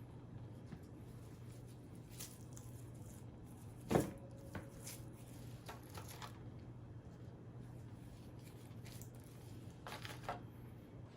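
Quiet eating and food-handling noises: small clicks, rustles and soft squishes, with one sharper knock about four seconds in that rings briefly, over a low steady hum.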